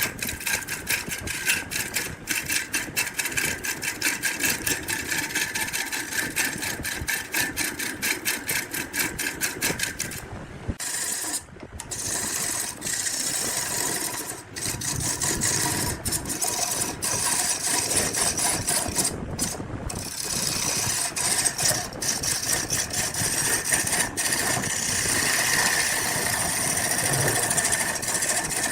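A power tool running and working wood, with a fast rattling beat for about the first ten seconds. It stops briefly a few times, then runs on more evenly.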